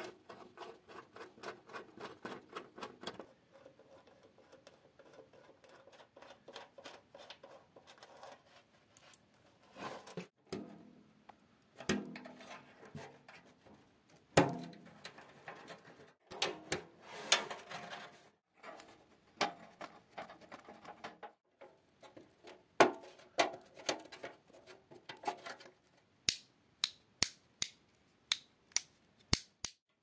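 Screwdriver working rusty screws out of an old electric heater's casing, with quick scraping clicks, metal taps and knocks as parts and wire connectors are handled. A fast run of clicks comes first, and a string of sharp, evenly spaced clicks comes near the end.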